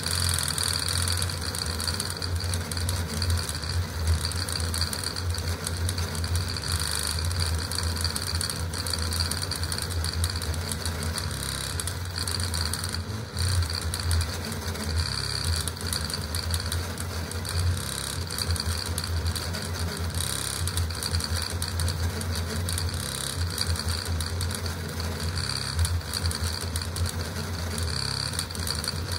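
Custom CoreXY 3D printer printing at high speed (600 mm/s, 80k acceleration): its stepper motors and belt-driven printhead make a continuous buzz and whine that shifts constantly with the rapid moves.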